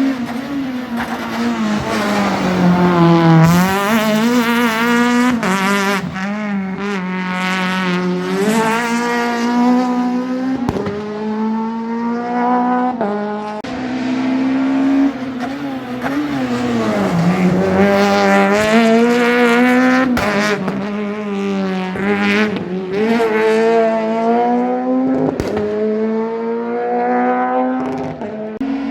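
Rally car engines at full attack, the pitch climbing hard and dropping again and again through gear changes and braking, with sharp cracks now and then.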